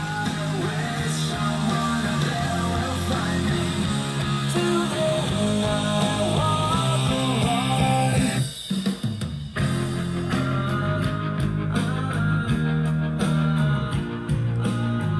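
A rock song with guitar and drums playing through a pair of Panasonic two-way bookshelf speakers, fed by a tube preamp and a two-channel power amp and picked up by a phone's microphone in the room. The music thins out for about a second just past the middle, then carries on.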